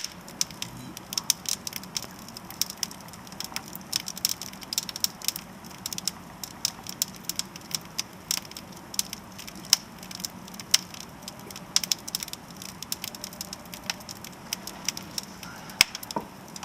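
Wood fire burning in a fireplace, crackling with frequent, irregular sharp pops over a steady low hiss.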